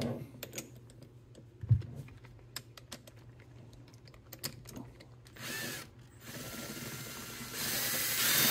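Hand ratchet clicking in quick irregular runs as a socket turns a nut inside a torque wrench handle, with a single knock. In the last few seconds a steady rushing noise takes over and grows louder.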